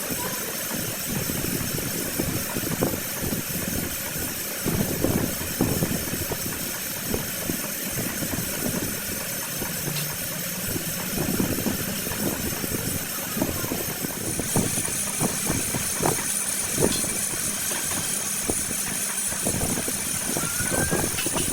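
Workshop machinery running steadily with a thin high whine, under irregular knocks and metal clatter. The whine grows stronger about two-thirds of the way in.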